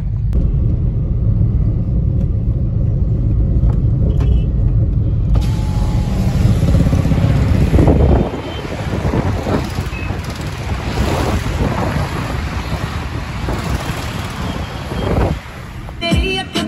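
Low, steady road and engine rumble of a car being driven, heard inside the cabin. About eight seconds in the rumble drops away and a hissier rush of traffic and wind noise takes over.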